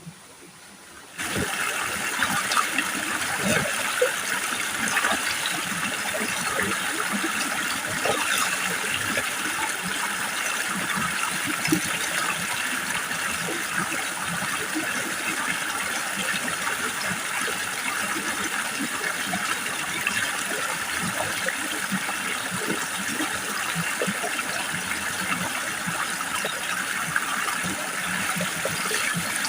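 Flowing water, a stream running steadily with a busy trickling, which cuts in suddenly about a second in.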